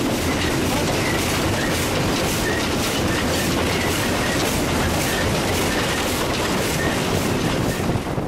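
Victorian Railways K class 2-8-0 steam locomotive K160 working under steam, heard from the footplate: a steady beat of exhaust over loud running noise from the engine and wheels.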